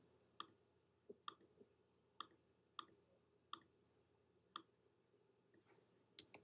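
Faint, irregular computer mouse clicks, about eight of them, from clicking and dragging shapes on screen, with a louder pair near the end.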